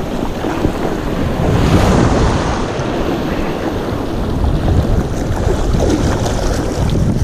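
Breaking surf washing over the shore, with wind rumbling on the microphone.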